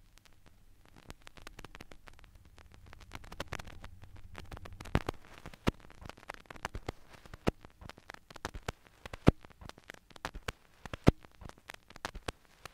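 Vinyl LP surface noise with the stylus in the run-out groove after the last track: soft crackle and pops, and a louder click that comes back about every 1.8 seconds, once per turn of the record at 33⅓ rpm. A faint low hum underlies the first few seconds.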